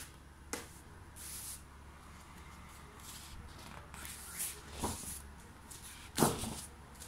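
Thick pages of a wallpaper sample book being flipped by hand: a series of paper swishes and soft slaps as each sheet turns and lands, the loudest a little after six seconds in.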